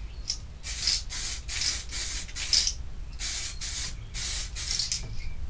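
Aerosol can of DuraBlue spray-on bluing hissing in short bursts, about two a second, as light coats are sprayed onto a rifle's metal parts.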